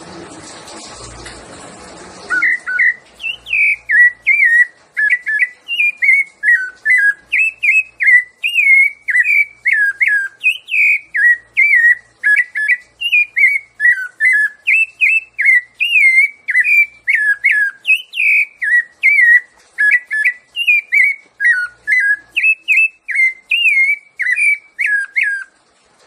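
Rufous-bellied thrush (sabiá-laranjeira) singing its "piedade Senhor" song: a long unbroken run of short, fluted whistled notes, about two a second, each bending up or down in pitch. The song starts about two seconds in, after a steady rushing noise, and stops just before the end.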